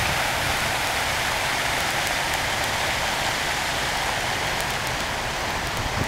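Plaza fountain's many small water jets splashing steadily into a shallow pool, an even patter of falling water, a little fainter near the end.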